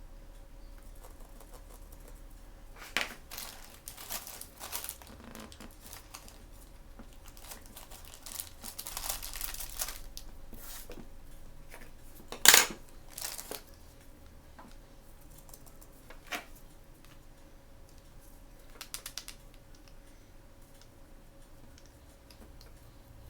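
Blind-bag toy packaging being handled and opened by hand: plastic crinkling, rustling and small clicks come and go. There is a denser stretch of rustling a little before halfway, and one sharp click a little after halfway that is the loudest sound.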